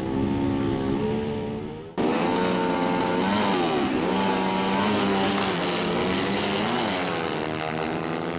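Drag-racing motorcycle engines. A steady engine note fades out, then about two seconds in it cuts abruptly to louder engines revving and accelerating, their pitch dropping and climbing again several times.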